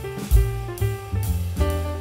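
Background instrumental music, jazz-style, with a drum kit and sustained melodic notes.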